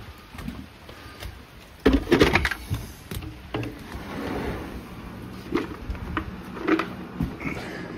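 A sliding glass patio door being opened and stepped through, with knocks and rattles of its frame and footsteps on wood. The loudest knock comes about two seconds in, with smaller ones after.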